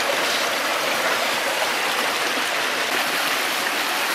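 Small rocky stream running steadily over a riffle, a constant splashing of water over stones.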